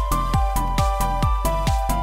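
Upbeat electronic background music with a steady drum beat, about two beats a second, under a bright synth melody.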